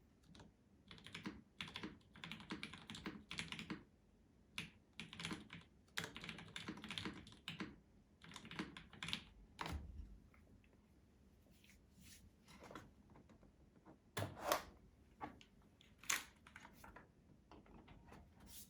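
Typing on a gaff. 60 prototype mechanical keyboard with Gateron Black Ink linear switches lubed with Krytox 205g0. Quick runs of keystrokes fill the first ten seconds or so; after a short pause come sparser, scattered key presses, with one louder stroke about fourteen and a half seconds in.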